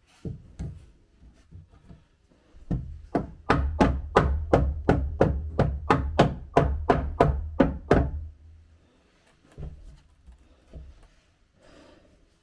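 Claw hammer striking a wooden stair tread: a few knocks, then a steady run of about fifteen blows at about three a second, each with a deep thud, followed by a few scattered taps.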